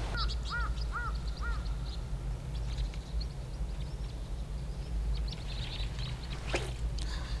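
A bird gives four quick, arched calls in a row at the start, while small birds chirp faintly and high throughout over a steady low background noise. A brief swish comes near the end.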